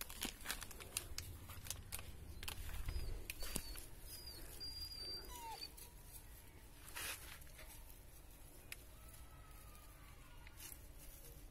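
Faint scattered rustling and small clicks in dry grass and leaves, with a few thin high chirps a few seconds in and a longer faint whistle near the end.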